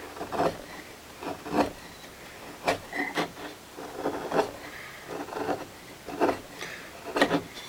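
Wood being rubbed or rasped by hand: about ten short strokes at an uneven pace.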